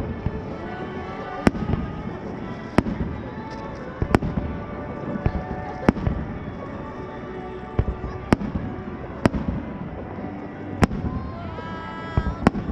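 Fireworks shells bursting in the air: about nine sharp bangs, one every second or two, over music.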